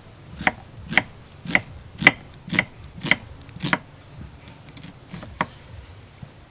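Kitchen knife slicing an onion on a thick round wooden chopping board, the blade knocking on the board about twice a second. Seven even strokes come in a row, then fewer and fainter ones near the end.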